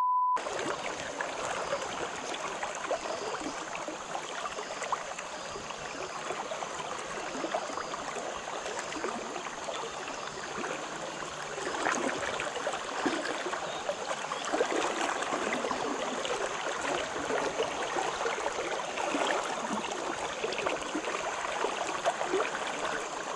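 River current rushing and gurgling steadily past the bank, a constant crackling wash of water. At the very start there is a brief 1 kHz test-tone beep over colour bars.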